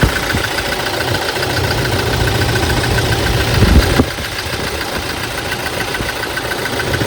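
Toyota Hilux diesel engine running at idle with a fast, even clatter, unsteady from a cylinder 1 misfire that leaves the engine shaking and weak. It briefly gets louder about three and a half seconds in, then drops back suddenly at about four seconds.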